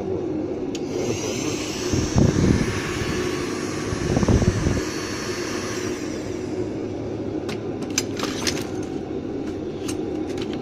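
Electric heat gun running steadily, its fan and airflow making a continuous whooshing hum. A high hiss lasts for a few seconds, with two louder surges about two and four seconds in and a few light clicks near the end.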